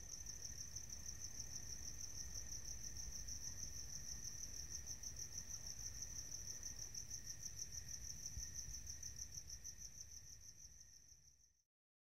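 Cricket chirping in a fast, even pulse over a faint low rumble. It fades out near the end and cuts to silence.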